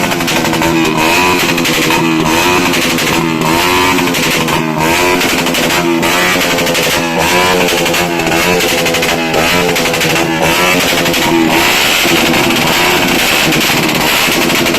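Background music led by a guitar, with a steady beat.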